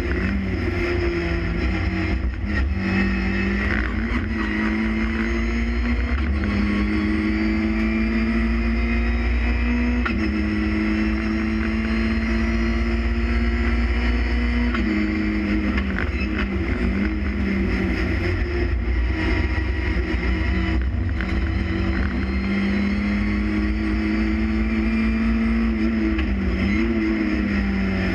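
Renault Clio Cup race car's engine heard from inside the stripped-out cabin at racing speed. It holds high revs, its pitch climbing and dropping several times through gear changes and braking, over a heavy low rumble.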